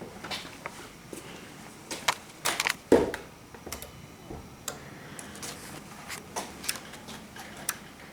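Scattered light clicks and small knocks at irregular intervals, with a louder knock about three seconds in.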